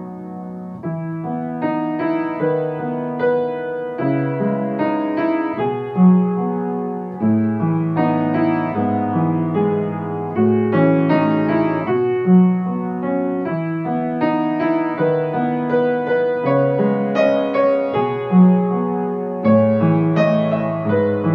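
Slow, gentle solo piano music, single sustained notes and chords following one another at an unhurried pace.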